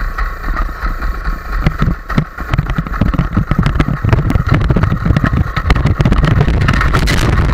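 Paramotor's two-stroke engine running behind the pilot as the wing is pulled up overhead for launch. An uneven, gusty low rumble lies over the steady engine note.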